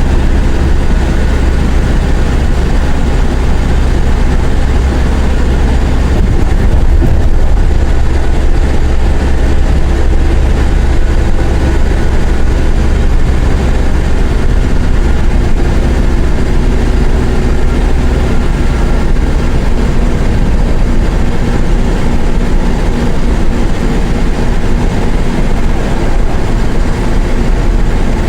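Mercedes-Benz OF-1418 bus's six-cylinder diesel engine running while the bus is driven, its engine note changing pitch a few times.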